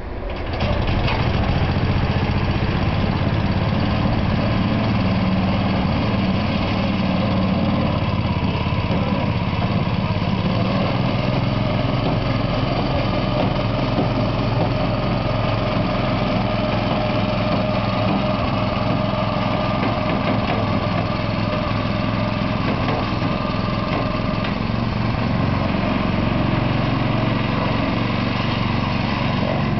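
Small petrol engine of a Sisis Hyderator turf aerator catching just after a pull-start, then running steadily as the machine works across the lawn.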